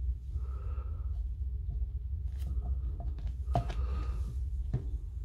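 Faint clicks and rubbing from a plastic grease syringe being worked into an impact wrench's gear housing, with two clearer clicks in the second half, over a steady low hum.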